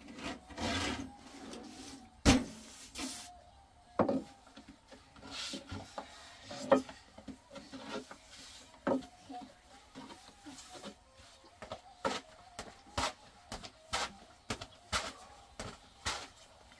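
Long thin wooden rolling pin rolling out flatbread dough on a round wooden board: rubbing strokes with sharp wooden knocks and clacks. The loudest knock comes about two seconds in; later the taps come roughly once a second.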